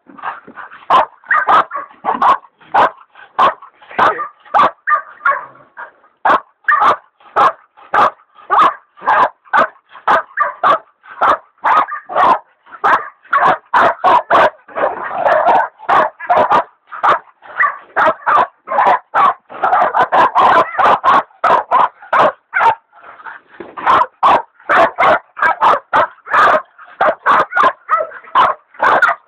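Hog dogs baying a big wild sow: a steady, unbroken run of loud barks, about two a second, from a pair of dogs, one of them a leopard dog.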